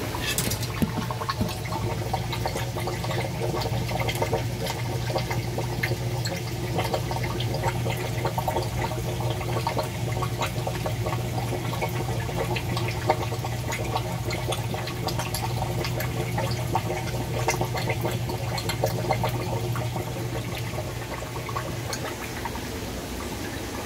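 Aquarium water trickling and splashing, with many small drips and splashes over a steady low hum that fades near the end.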